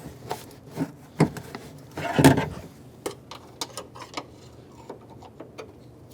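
Small plastic clicks and taps as a screwdriver and pick work the locking tab and plate off the back of a Honda Pilot's rear exterior door handle. One louder clatter comes about two seconds in.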